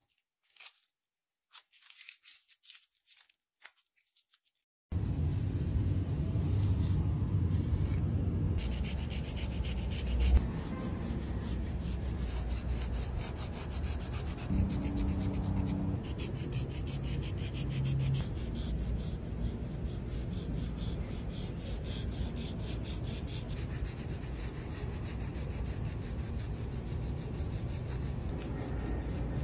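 A few faint soft crackles, then from about five seconds in, sticks of sidewalk chalk scraping and rubbing on rough concrete: a dense, continuous run of gritty strokes as the colour is ground into the surface.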